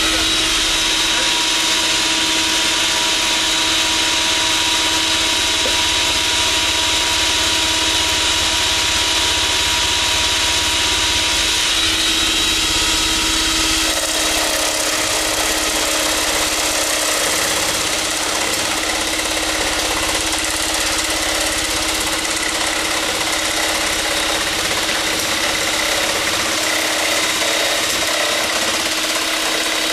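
Wood router running at high speed, cutting a hardwood blank that spins in a homemade lathe to round it down. It runs steadily throughout, and its tone shifts about thirteen seconds in.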